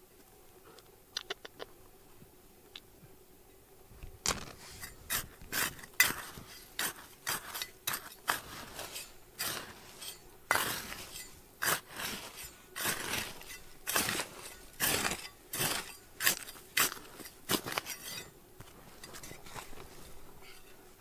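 A run of sharp clinking and scraping strikes of hard objects on stone or gravel, about two a second, beginning about four seconds in and dying away near the end, after a few light clicks at the start.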